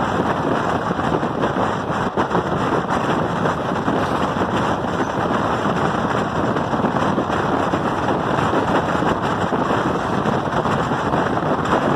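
Steady running noise of a moving train heard from on board, with wind noise on the microphone.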